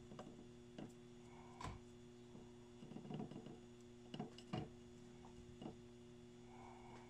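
Near silence: a faint steady electrical hum with a handful of soft ticks and taps from handling a soldering iron and solder wire at a circuit board.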